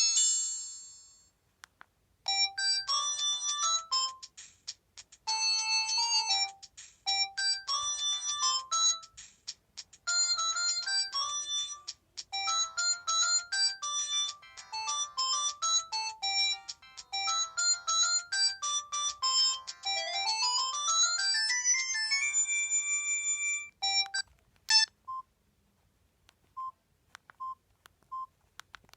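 Samsung SGH-C270 mobile phone playing its preloaded polyphonic ringtones in turn: short synthesized melodies separated by brief gaps, a rising run of notes about two-thirds of the way through, then a held tone and a few sparse single beeps near the end.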